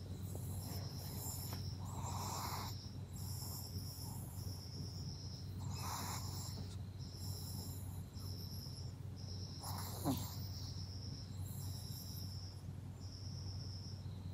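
Crickets chirping in a steady repeating pattern, about once a second. Under it, a Maltese puppy sleeping on its back gives two soft snoring breaths and, about ten seconds in, a short falling squeak.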